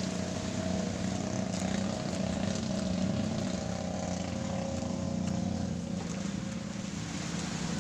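Steady drone of a motorboat engine out on the water, over the wash of the sea; the drone eases a little near the end.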